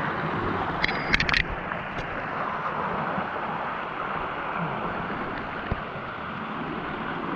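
Steady rush of falling and flowing water from a nearby waterfall, with a few short clicks about a second in.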